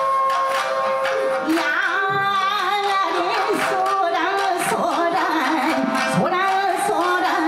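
Japanese folk song sung to an ensemble of shamisen with taiko drum: many shamisen plucked in a steady rhythm. A single voice comes in about a second in with a wavering, ornamented melody.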